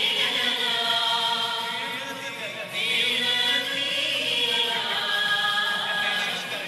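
Slow sung church chant with long held notes, and a new phrase starting about three seconds in.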